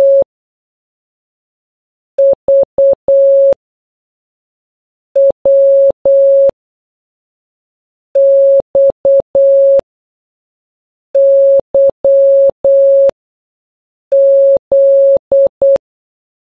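Electronic Morse code beeps: one steady mid-pitched tone keyed in short dits and long dahs, spelling single letters about every three seconds. The last dah of U ends the first group, then V (dit-dit-dit-dah), W (dit-dah-dah), X (dah-dit-dit-dah), Y (dah-dit-dah-dah) and Z (dah-dah-dit-dit) follow.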